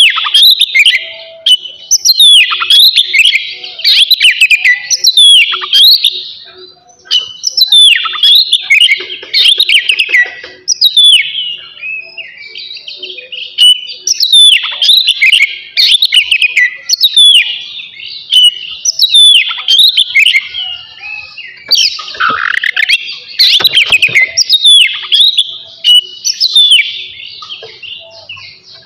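Oriental magpie-robin (kacer) singing loudly and without pause: quick repeated phrases of sharp, falling whistles and chirps, with one lower, louder swoop about three-quarters of the way through.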